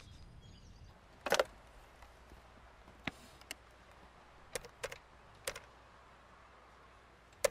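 Quiet room with about seven light, separate clicks and taps, the first and strongest about a second in, as mobile phones are handled and their buttons pressed.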